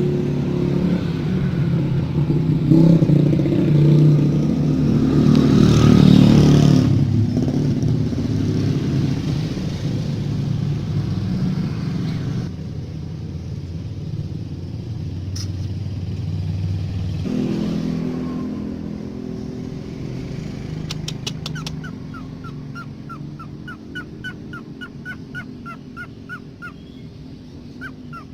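A motor vehicle engine running close by, loudest about six seconds in, easing off and fading after about seventeen seconds. From about twenty-one seconds a bird gives a quick series of short, evenly repeated chirps.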